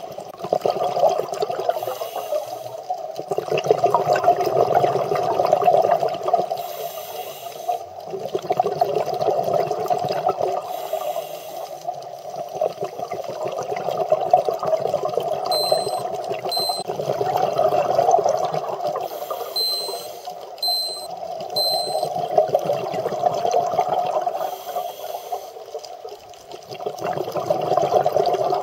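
Scuba diver's exhaled bubbles from the regulator, heard underwater: a bubbling rush that swells and fades in long bursts every few seconds with the breathing cycle.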